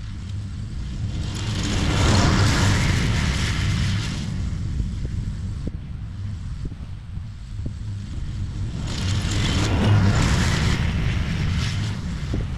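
Exmark X Series ride-on mower running while mowing very tall, thick grass: a steady low engine rumble with two long swells of rushing noise, about two seconds in and again about nine seconds in.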